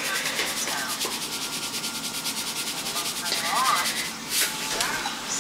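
Salt grinder turned in a steady rasp, with a fast fine grinding rhythm that stops about four seconds in, followed by a couple of sharp ticks.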